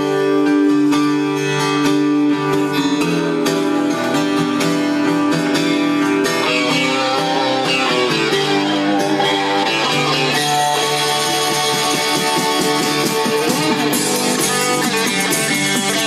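Live rock band playing an instrumental song intro: strummed acoustic and electric guitars over bass. The sound fills out with drums and cymbals about six seconds in.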